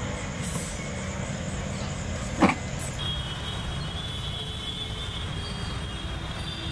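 City street traffic: a steady low rumble of passing cars and scooters, with one brief loud sound about two and a half seconds in.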